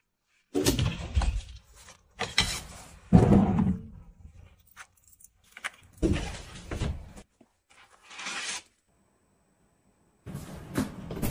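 A string of short cookware handling sounds, with knocks and rattles as a boxed pan and its metal-knobbed lid are handled. Near the end, hot liquid pours steadily into a glass cup.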